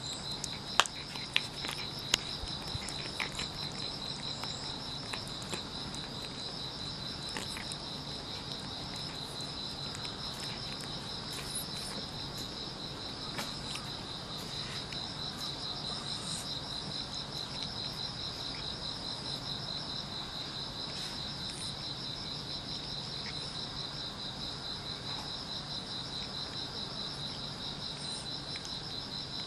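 Steady chorus of insects chirping in a fast, continuous trill at two high pitches. A few sharp clicks sound in the first two seconds.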